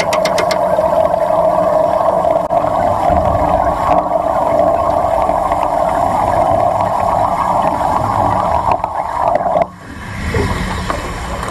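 Underwater wet welding arc burning on a steel bracket, a steady hiss carried through the water, cutting off suddenly about nine and a half seconds in as the arc is broken. Quieter water sounds follow.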